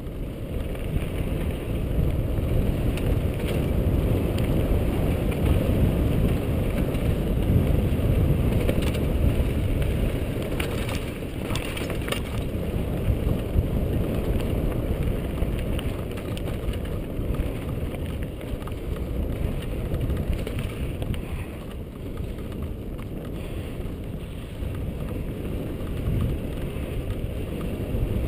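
Mountain bike rolling fast along a rocky dirt singletrack, heard through a bike-mounted camera: a steady low rumble of wind and tyre noise, with a few light rattles partway through.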